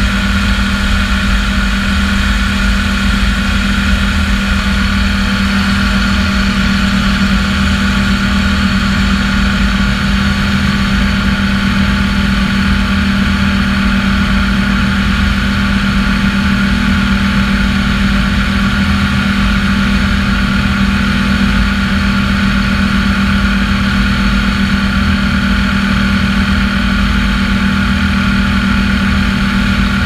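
Balerit 82 ultralight's engine running steadily at takeoff power, holding one even pitch through the takeoff run and climb-out, with wind rushing over the microphone.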